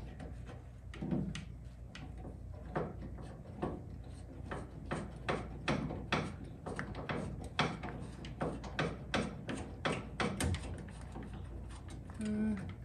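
Irregular light metallic clicks and taps of bolts and nuts knocking against a power brake booster's mounting bracket and the firewall as they are fished into place by hand, with a heavier knock about ten seconds in.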